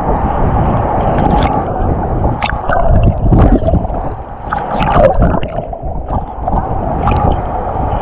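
Rough sea water splashing and washing close to the microphone, with sharper splashes; the loudest come about three and a half and five seconds in.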